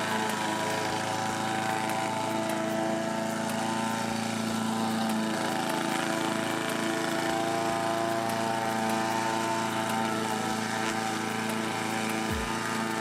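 The 173cc single-cylinder gas engine of a homemade remote-controlled lawn mower runs steadily at working speed while the mower cuts grass.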